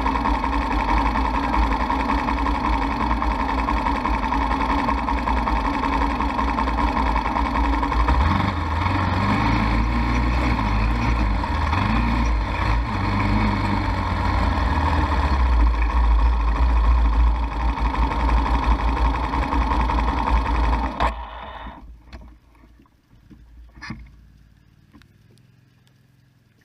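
ATV engine running steadily, its low rumble heavier through the middle. It shuts off suddenly about two-thirds of the way in, leaving a few faint clicks.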